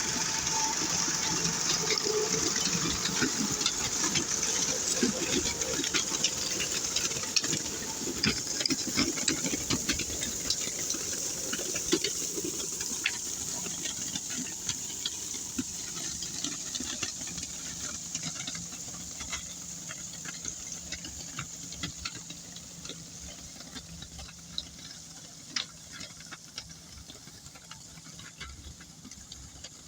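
Steady hissing spray on a road surface, with many small crackles and ticks, fading gradually over the later half.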